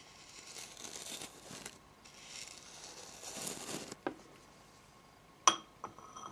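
Soft brush bristles stroked close across the microphone: two long swishing strokes. About four seconds in, the brush taps against a ceramic bowl, then clinks sharply on it about a second later, leaving a brief ringing.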